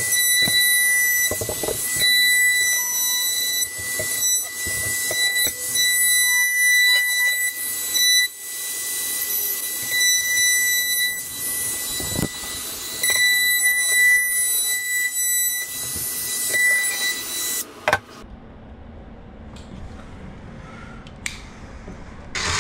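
Compact trim router with a half-inch bearing-guided flush-trim bit, whining steadily at high pitch while it cuts the overhanging glued laminate end cap flush with the countertop edge. The router stops about eighteen seconds in.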